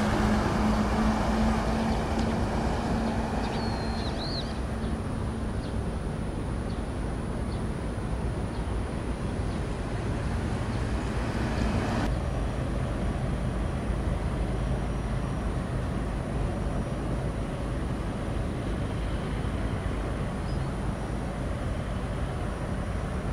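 Steady low engine drone with a constant hum, continuous through the whole stretch. The hum changes abruptly about halfway along. A brief high, wavering chirp sounds a few seconds in.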